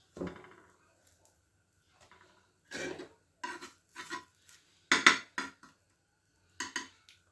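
Dishes and kitchen utensils being handled, making a series of separate clinks and knocks, the loudest about five seconds in.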